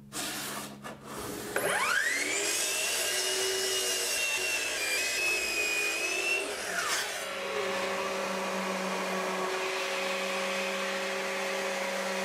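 Electric miter saw motor whining up to speed, running for about five seconds as it crosscuts a board, then winding down. A random orbital sander then runs steadily with a low hum.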